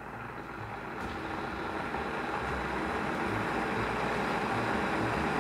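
Plastic electric kettle heating water toward the boil: a steady rumbling hiss that grows louder throughout.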